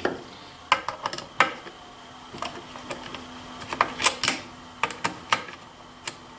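Scattered sharp clicks and light metallic taps, about a dozen at uneven intervals, from a screwdriver being set into and turning the two captive screws that hold the magazine plate on the underside of a Savage Model 64 .22 rifle.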